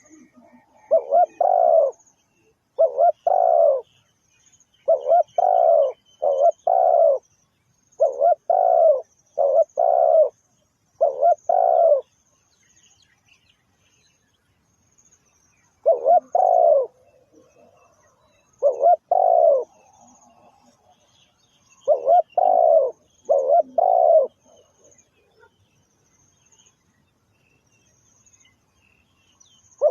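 Spotted dove cooing: low, two-note coos repeated about every two seconds, with a pause of a few seconds midway.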